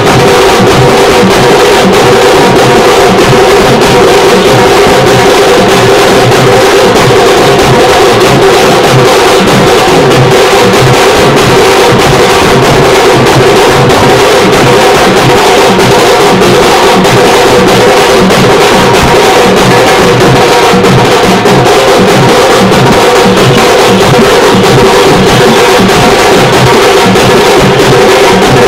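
Loud, percussion-heavy music: a fast, steady drum beat under held melodic notes.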